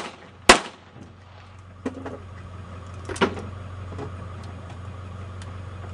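Gunshots fired from a long gun: one loud sharp shot about half a second in, then two fainter, sharper reports near two and three seconds, over a steady low hum.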